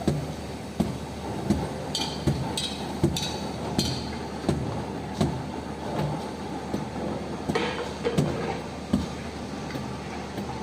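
A steady low rumble with a dull thud repeating about every three-quarters of a second, and a few sharper clicks between two and four seconds in.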